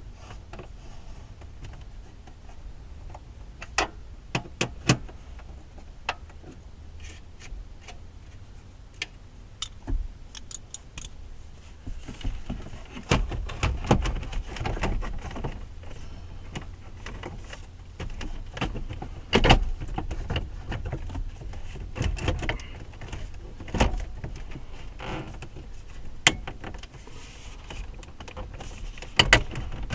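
Irregular clicks, knocks and handling noises from the plastic dashboard trim and the car radio being worked into the dash, with a few sharper knocks.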